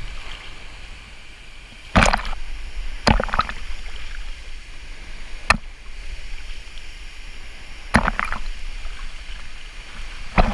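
Pool water sloshing against a waterproof action camera held at the surface, with a steady low rumble of water on the microphone. About five sharp splashes slap the camera housing, a couple of seconds apart.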